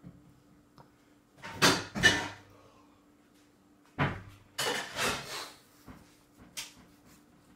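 Spoon and hand scraping and knocking against a stainless-steel baby bowl in short clattering bursts: a pair about two seconds in, a longer run from about four to five and a half seconds, and a brief one near the end.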